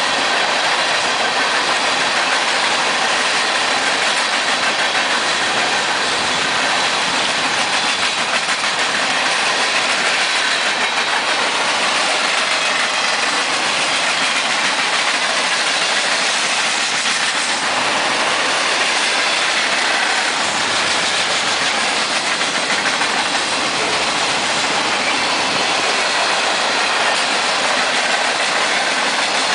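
Freight train cars rolling past at speed: a steady, loud rush of steel wheels on rail with faint clickety-clack of wheels over rail joints.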